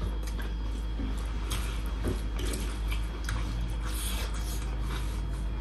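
Eating sounds: hands mixing rice and meat on brass plates, with soft scattered clicks and chewing, over a steady low hum.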